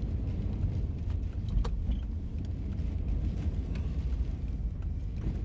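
Steady low rumble of a car driving slowly through a windstorm, with a few faint clicks.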